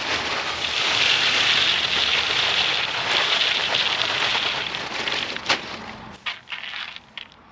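Pea gravel pouring from a bag into a cardboard sonotube form, a steady rush of stones for about six seconds. It is followed by a few scattered clicks as the gravel is spread by hand.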